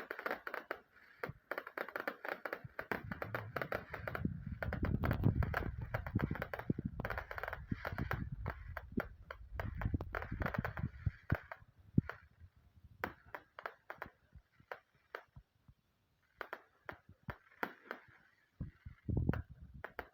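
Fireworks crackling in rapid strings of sharp pops, with a low rumble under the densest stretch; after about twelve seconds the pops thin out into scattered cracks with short gaps.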